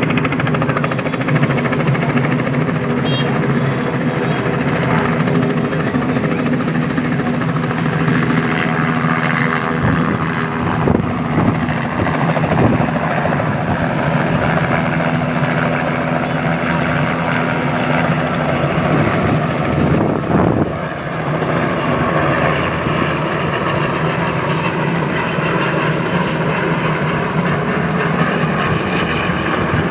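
Helicopter engine and rotor running steadily: a continuous turbine and rotor hum over rushing noise.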